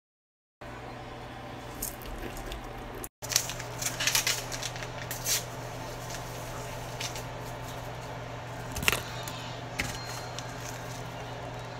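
Canned beans with their liquid tipped into a rice cooker's inner pot: wet squelching and plopping with sharp clicks of the can against the pot, over a steady low hum.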